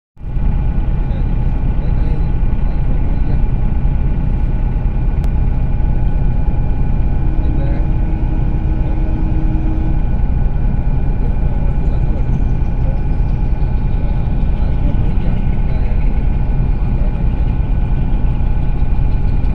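Bus engine idling with a steady low rumble, heard from inside the bus while it stands still.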